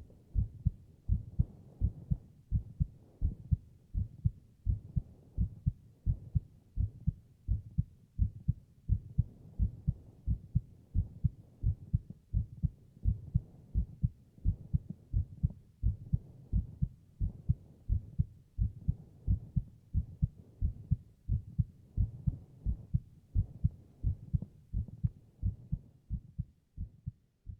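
Heartbeat: a steady rhythm of low double thumps, lub-dub, repeating evenly and fading out near the end.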